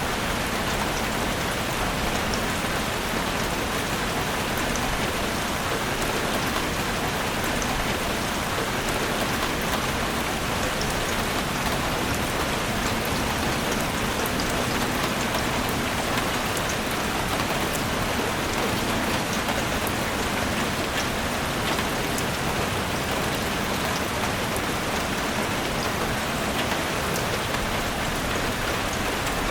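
Steady rain falling: an even hiss with scattered patter of individual drops, unchanging throughout.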